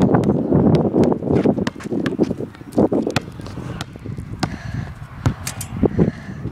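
Wind buffeting the microphone for the first second or so, then scattered, irregular thuds and scuffs of footsteps and a basketball bouncing on a concrete court.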